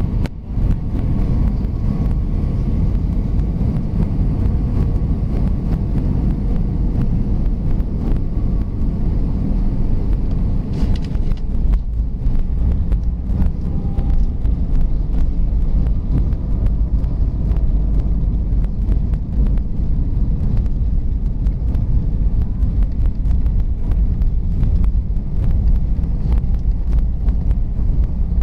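Cabin noise inside an Airbus A320: a steady low rumble of engines and airflow. About eleven seconds in there is a knock, and after it the rumble grows rougher with many small knocks.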